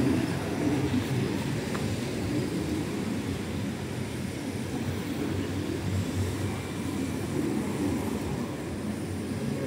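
Steady low rumbling background noise that wavers in strength, without any distinct pitched sound or sharp knock.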